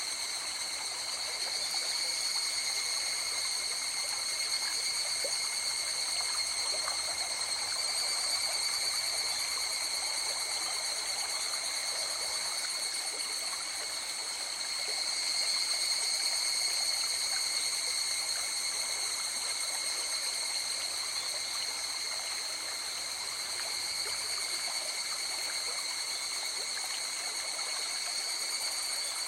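A river flowing steadily, a continuous rushing and trickling of water. Layered over it is a steady high-pitched ringing made of several even tones that does not let up.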